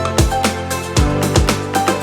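Background music with a steady beat: electronic-sounding track with kick drum, sustained notes and ticking hi-hats.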